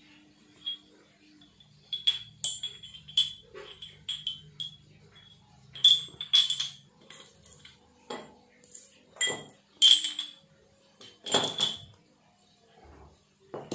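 Metal cutter heads on steel shafts for a dowel-making machine being handled and knocked together, giving a quick series of sharp, ringing metal clinks. A few heavier clunks come near the end as the parts are set down.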